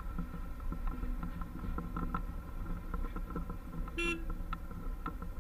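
Light irregular clicks and knocks of footsteps on the steel-slatted deck of a suspension footbridge, over a steady low rumble. About four seconds in comes one brief high-pitched toot.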